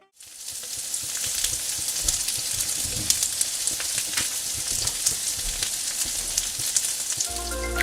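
Stir-fry sizzling in a hot pan: a steady hiss with frequent crackles and pops.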